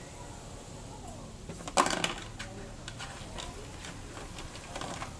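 Metal tools and scooter parts clanking during work, with one loud clatter about two seconds in and lighter clicks after it.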